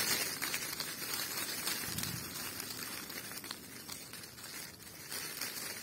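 Leaves of a freshly picked poplar branch rustling as the branch is shaken by hand, a crisp crackly rustle that is loudest at first and fades toward the end.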